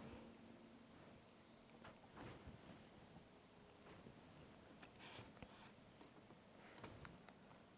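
Near silence: a faint steady high-pitched tone, with a few faint soft taps scattered through.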